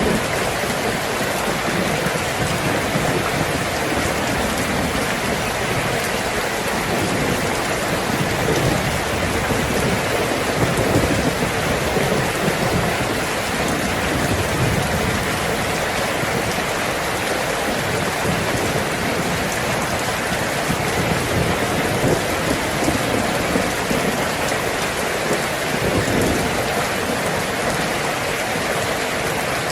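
Heavy rain drumming steadily on a tin roof, with a low rumble of thunder underneath.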